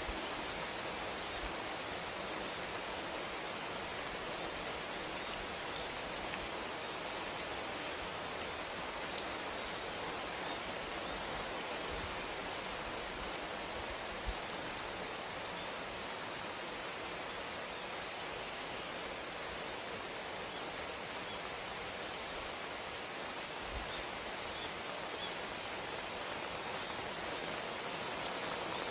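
Steady rain falling, an even hiss, with faint short high-pitched chirps or ticks scattered through it.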